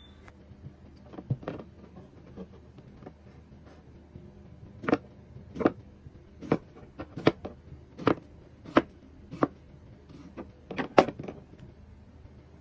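Chef's knife making accordion cuts down through a raw potato, each stroke ending in a sharp knock as the blade hits the wooden spoon handles and board. There are a few scattered cuts at first, then a steady run of about one every 0.7 s from about five seconds in.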